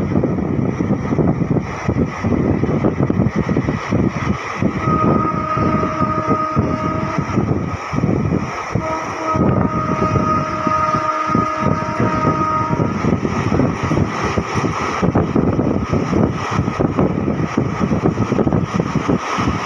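Express passenger train running at speed through a station, heard from the train: a steady rumble and rattle of wheels on track. A multi-tone train horn sounds two long blasts, the first about five seconds in for about two seconds, the second about four seconds long.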